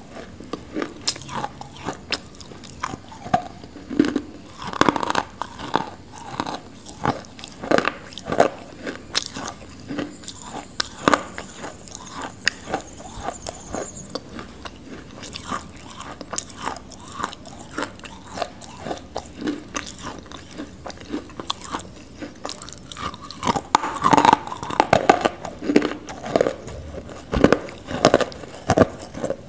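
Close-miked biting and chewing of a lump of edible clay: a run of sharp crunches and crackles, coming thicker and louder about three quarters of the way through.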